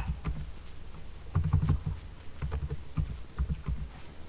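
Irregular clicks and dull knocks of a computer keyboard being typed on, with mouse clicks, picked up through the desk.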